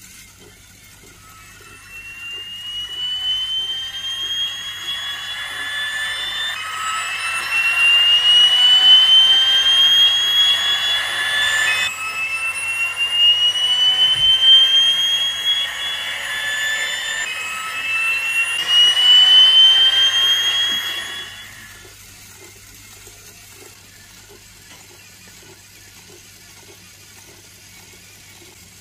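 Motor-driven fan of a 1/10-scale turbofan engine model running: a high whine climbs slowly in pitch, drops back and climbs again about three times, then dies away about three-quarters of the way through. A faint steady hum remains after it.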